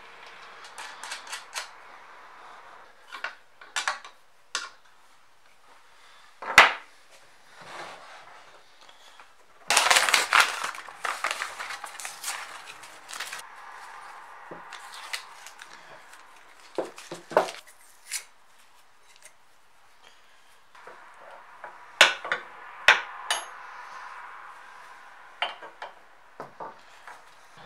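Metal parts of a Kity 642 sharpener being handled and fitted together: scattered sharp clicks and knocks of metal on a painted metal base, with a burst of rattling clatter about ten seconds in and two louder knocks a little past twenty seconds.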